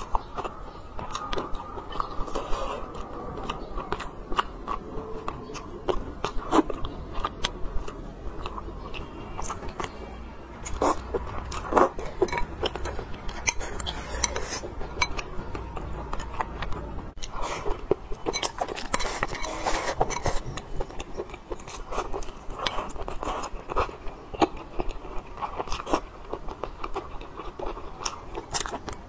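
Close-miked chewing and mouth sounds of someone eating braised pork belly, braised eggs and rice, with many short clicks and smacks throughout, including chopsticks tapping a glass rice bowl.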